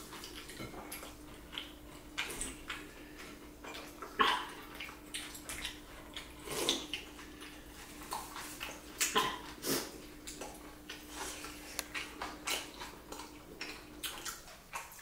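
Gundruk soup being slurped from bowls, with eating mouth sounds: a string of short, irregular sips and smacks. A faint steady hum sits underneath.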